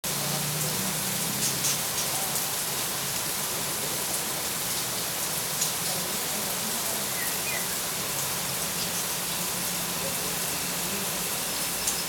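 Steady hiss of falling rain, with a few faint bird chirps about halfway through.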